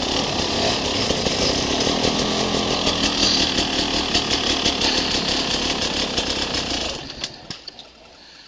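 Enduro dirt-bike engine running under throttle close to the microphone, a dense buzzing drone with rapid pulses. About seven seconds in it drops sharply to a much lower level, leaving a few light clicks.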